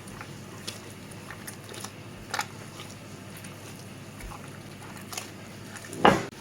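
Hands kneading sticky malban worked with ghee and sesame: soft squishing and tacky sounds, with a louder smack just before the end.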